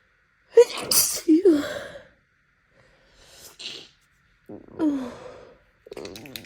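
A woman sneezes once, a sudden loud burst about half a second to two seconds in, in a fit of allergy sneezing. A faint sniff follows, then a couple of breathy, sighing gasps.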